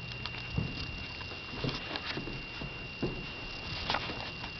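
Irregular soft thumps and rustling as a cat shifts on the bedding and a handheld camera is moved about, over a faint steady high whine.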